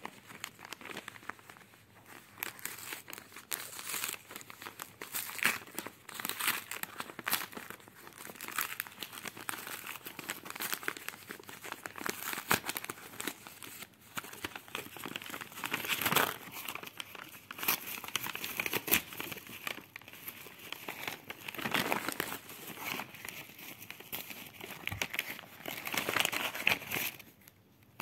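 A mailing-bag package being opened by hand: tearing and crinkling of its paper and plastic wrapping in an irregular run of rustles and crackles that stops abruptly near the end.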